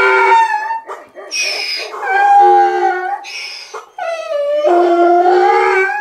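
Miniature donkey braying: a long hee-haw in which drawn-out low calls alternate with short, high, wheezy in-breaths, several times over.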